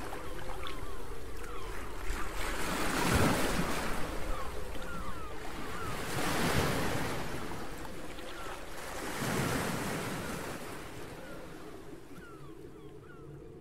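Sea waves washing in, a surge about every three seconds, with faint short chirps over the hiss; the sound fades out gradually towards the end.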